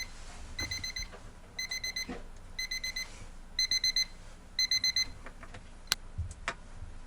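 Electronic alarm beeping in quick bursts of four high beeps, one burst about every second. It stops about five seconds in, and a few sharp clicks follow.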